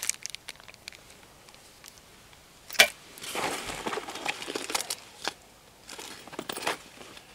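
Plastic bags crinkling and rustling as a bag of whistles is handled and set down among other bagged gear. A single sharp click comes almost three seconds in, with smaller clicks in the rustling after it.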